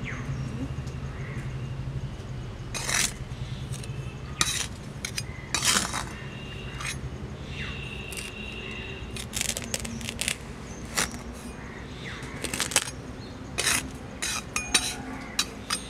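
Metal spatula scraping and scooping sand over a glass lid in a wide metal pan: irregular scrapes and clinks of metal on metal and glass, some sharper than others.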